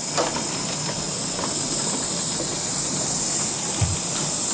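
Steady hiss of steam from River Mite, the Ravenglass & Eskdale Railway's 15-inch gauge 2-8-2 steam locomotive, with a few light clicks and a short dull knock near the end.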